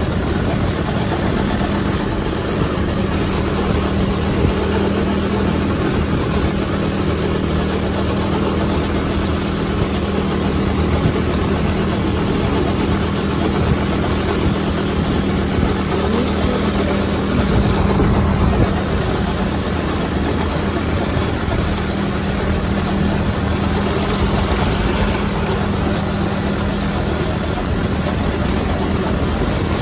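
Small go-kart engine running steadily under way, its speed governor removed, with road and wind noise over it. It briefly gets louder about two thirds of the way through.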